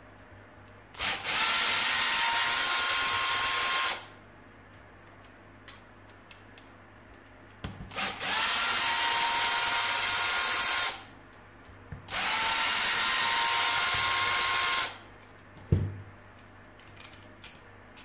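Parkside cordless screwdriver run three times, about three seconds each, backing out screws. Each run starts with a short rising whine as it spins up, then holds a steady pitch. A single sharp knock comes near the end.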